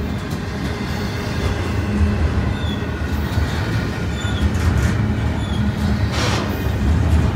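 Double-stack intermodal freight train's container well cars rolling past close by: a steady, loud low rumble of steel wheels on the rails.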